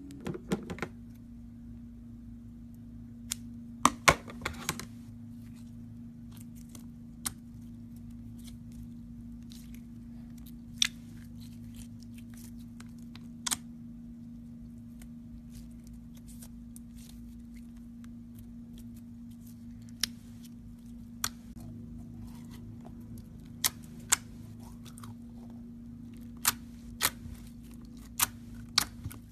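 Pink slime from a cut-open stress ball being pressed and poked with the fingers: scattered sharp sticky clicks and pops, a cluster about four seconds in and more near the end, over a steady low hum.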